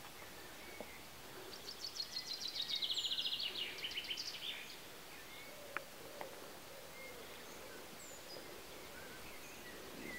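Quiet woodland ambience with a songbird singing one fast trilled phrase of about three seconds, starting a little over a second in and stepping down in pitch toward its end; a few faint high chirps follow now and then.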